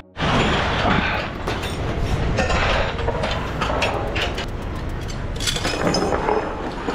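Curtainsider trailer side curtain being unbuckled and pulled open: the curtain's runners rattle along the roof rail while the metal buckles and straps clink, with many short clicks throughout.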